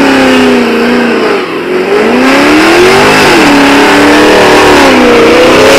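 Dodge Challenger doing a burnout, its engine revving loud and hard with the pitch rising and falling as the throttle is worked, over the hiss of spinning tyres.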